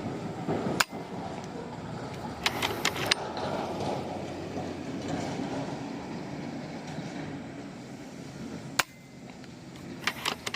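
FX Impact M4 PCP air rifle fired twice, about eight seconds apart, each shot a single sharp crack, with a short run of quicker clicks a couple of seconds after each, over a steady background hiss.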